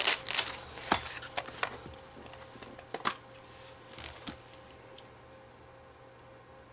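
Small clicks and rattles of a precision screwdriver and its bits being handled in an electronics toolkit while a bit is swapped: a quick run of clicks in the first two seconds, a couple more about three seconds in.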